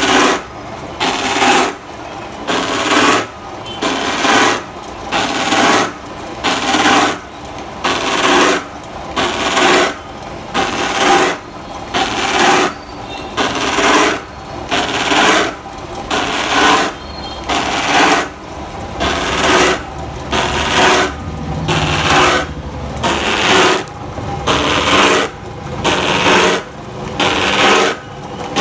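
Electric motor-driven gang of saw blades cutting slots into a large PVC pipe: a rasping cut about once a second as the pipe is fed into the blades, over the motor's steady hum.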